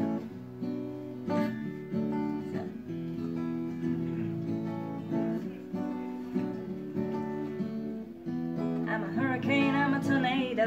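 Steel-string acoustic guitar strummed through a song's introduction, chords ringing between strokes. A woman's singing voice comes in near the end.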